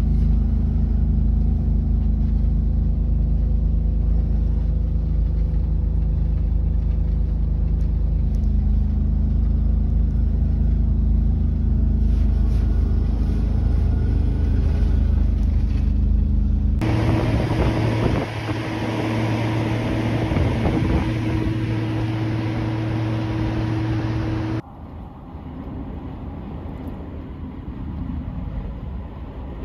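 Steady low drone of a truck's engine and road noise heard inside the cab, with several steady hums. About 17 seconds in it cuts abruptly to a brighter, louder noise with steady hums. About 25 seconds in it cuts again to a quieter, even noise.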